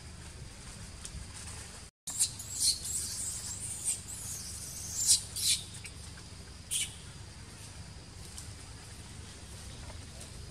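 Baby monkey squeaking: a run of high-pitched squeaks and squeals starting about two seconds in, the loudest around the middle, with one more a little later.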